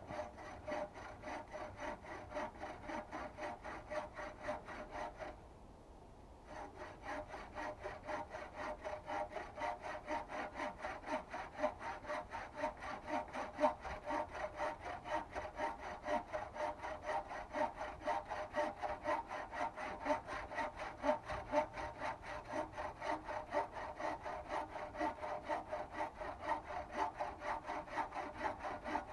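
Wood being sawn by hand with steady back-and-forth strokes, about three a second, with a short pause about five seconds in.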